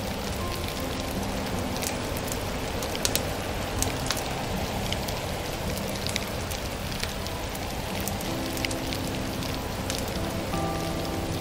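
Wood fire in a stove crackling, with scattered sharp pops, over a steady rain-like hiss. Soft held music notes sound faintly underneath.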